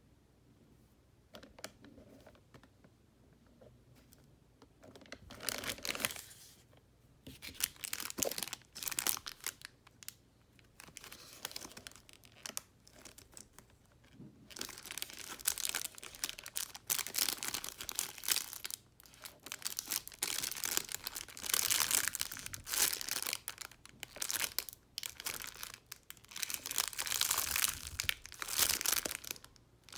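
Plastic packaging crinkling as it is handled, in irregular rustling bursts that start about five seconds in and run almost without a break from about halfway.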